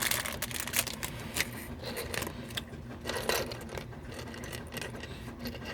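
Small plastic Mega Construx building pieces clicking and clattering against each other as they are handled and sorted, in scattered irregular clicks.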